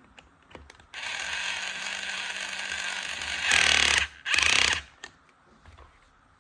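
Small battery-powered tool motor whirring steadily for about two and a half seconds, then two louder, shorter bursts; a few light clicks come before and after.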